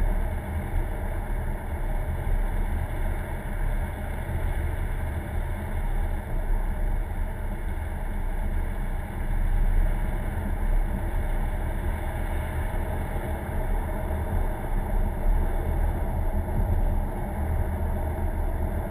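Steady engine and road noise inside a moving car's cabin, with a constant low rumble.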